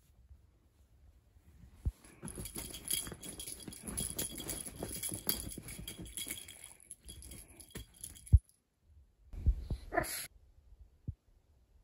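A cat toy rattling and jingling for several seconds as a Siamese cat bats and pounces at it, with a sharp thump a little after eight seconds. About ten seconds in, the cat gives one short throaty chirp, a 'kkeureuk'.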